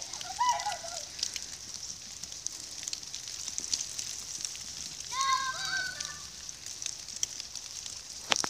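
Young children's high voices calling out briefly near the start and again about five seconds in, over a steady hiss with many light ticks and crackles.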